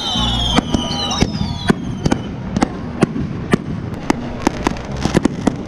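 Consumer fireworks going off: a rapid run of sharp bangs and cracks from bursting shells, about four a second. During the first two seconds, high whistles slide down in pitch.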